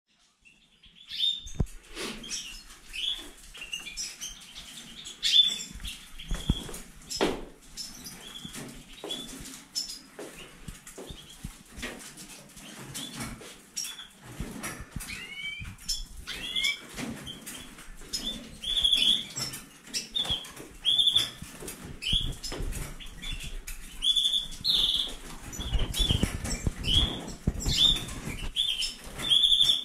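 Caged finches and canaries in a breeding room (European goldfinches, hooded siskins and colour canaries): many short, high chirps and calls, more frequent in the second half, with wing fluttering and light knocks against the cage wire.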